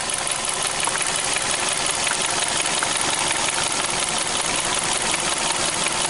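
2012 Hyundai Accent four-cylinder engine idling steadily, heard close up under the hood, with a faint regular ticking. It is running with a misfire on cylinder three, whose injector shows no voltage or current command.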